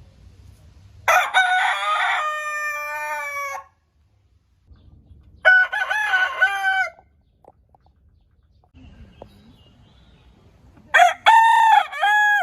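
Roosters crowing three times: a long crow about a second in, a shorter one at about five and a half seconds, and another near the end.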